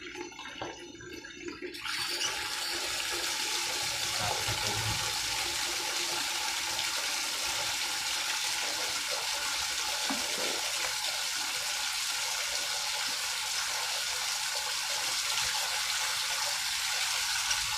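Water from an outdoor tap, turned up about two seconds in, running hard and splashing in a steady rush.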